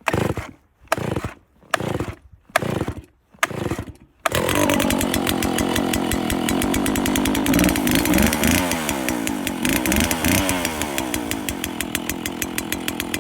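Cold Stihl 041 Farm Boss two-stroke chainsaw being pull-started on choke with the trigger locked: several quick pulls on the starter cord, then about four seconds in it fires and keeps running at fast idle. Its running turns into a regular pulsing near the end. It is a successful cold start in freezing weather.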